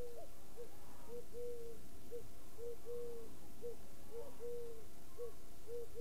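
A dove cooing: a low three-note phrase, one long coo and two short ones, repeated about every second and a half. A second, slightly higher coo overlaps near the start and again near the end.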